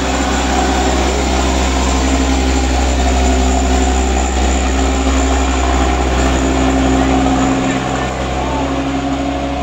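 Diesel engine of a loaded Mitsubishi Canter light dump truck labouring up a steep hill as it passes close by: a loud, steady low drone.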